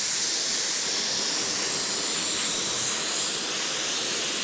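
Airbrush spraying white paint: a steady, high hiss of air.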